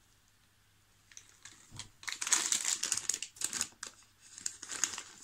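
Plastic sweet bag of Allen's Retro Party Mix crinkling and rustling as a hand rummages inside it. It comes in two spells: a longer one from about two seconds in, then a shorter one near the end.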